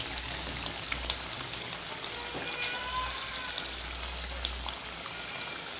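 Chicken karahi masala frying in oil in a karahi: a steady sizzle with scattered small crackles.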